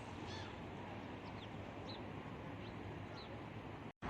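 Small birds giving a few short, high chirps over faint outdoor background noise. The sound cuts off abruptly just before the end.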